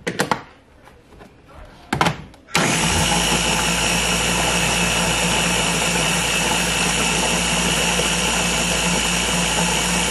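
A few clicks and knocks as the motor head is fitted onto a small press-top blender jar, then about two and a half seconds in the blender motor starts and runs at a steady pitch, blending frozen berries with yogurt and milk.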